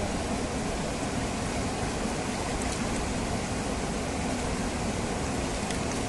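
Steady rushing of a fast stream, an even hiss and rumble of running water with no breaks.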